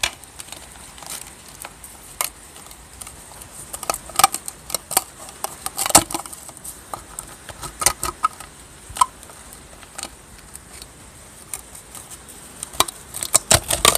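Irregular metallic clicks, taps and scrapes as a tin can and a square steel tube are handled and fitted together, with a sharper knock about six seconds in and a quick cluster of clatters near the end.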